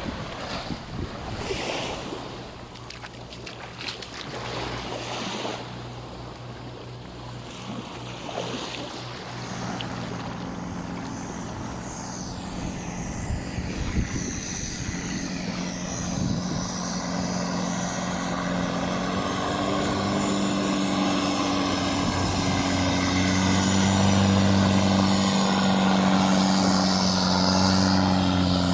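An engine drone comes in about a third of the way through and grows steadily louder as it draws nearer, over wind and surf on the shore.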